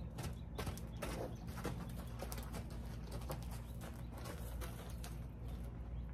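A horse's hooves stepping on sandy dirt as it is led on a lead rope, then shuffling as it stands: scattered soft thuds and scuffs.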